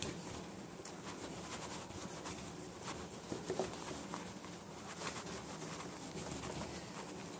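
Whiteboard duster wiping marker writing off a whiteboard: faint, repeated rubbing strokes.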